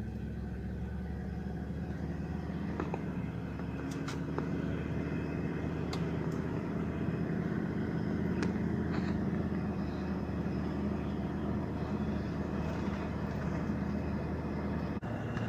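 A 1997 Dodge Ram pickup driving, its engine and road noise heard from inside the cab as a steady low rumble that builds slowly over the first half. A few sharp clicks sound over it.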